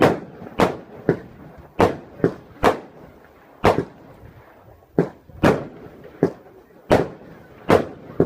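Fireworks exploding: about a dozen sharp bangs at irregular intervals, each trailing off in a short echo.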